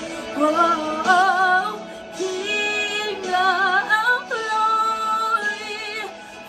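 A woman singing a slow worship song melody with vibrato, holding and sliding between notes over sustained instrumental chords.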